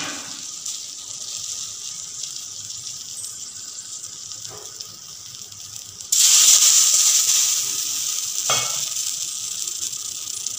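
Water sizzling and hissing on a hot iron dosa tawa, dying down slowly, then a sudden louder burst of sizzling about six seconds in that eases off again. A few light knocks come through.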